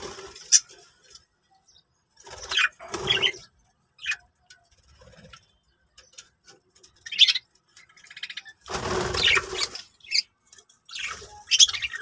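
Budgerigars chirping and squawking in short, scattered bursts, the longest and loudest about nine seconds in, with quiet gaps between.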